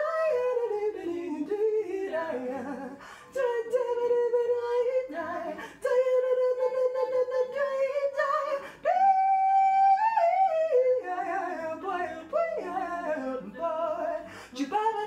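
A woman singing a cappella in wordless scat phrases, with gliding runs and a long held high note about nine seconds in.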